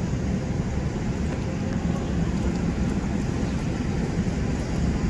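City street traffic: bus and car engines running at an intersection, a steady low rumble with no distinct events.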